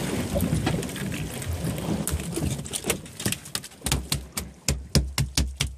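Wind noise on the microphone, then from about halfway a quick run of sharp knocks and taps, several a second, with dull thumps beneath them.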